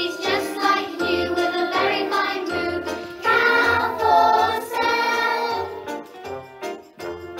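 A group of young children singing an action song together over instrumental music with a steady beat.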